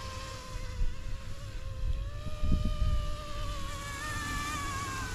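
YXZNRC F09 electric scale Black Hawk RC helicopter in flight: a high, wavering whine from its motor and multi-blade main rotor, rising slightly in pitch about two seconds in and dropping again near the end. Wind buffets the microphone with a low rumble, strongest about two and a half seconds in.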